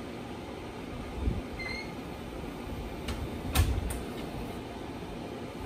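Metal spatula smoothing buttercream frosting around the side of a cake, with handling clicks and one sharp knock a little past halfway, over a steady low rumble.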